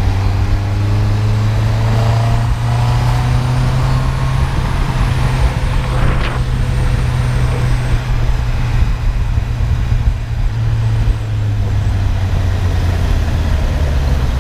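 Honda CB650R inline-four motorcycle engine on its stock exhaust, running steadily while riding. About six seconds in, a brief sound swells and fades over it.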